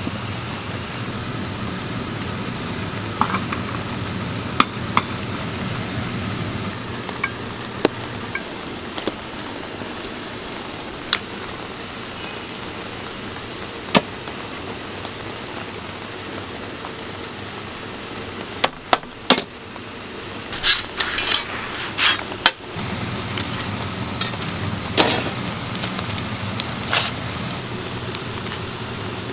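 Scattered sharp clicks and light knocks of metal dalgona-making tools, the stirring stick on the small ladle and tools on the steel tray, over a steady background hum. A denser run of sharp crackles and clicks comes in the second half.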